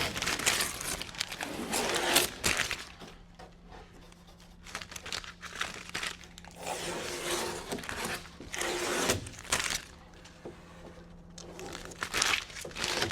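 Masking tape being peeled off a van's steel sliding door and crumpled up: a series of tearing, crinkling pulls with short pauses between them.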